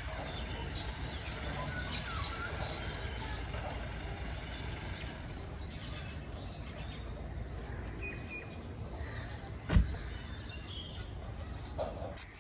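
Mercedes-Benz C200 coupe's driver door shut with a single loud thud about ten seconds in. Birds chirp over a steady low background rumble.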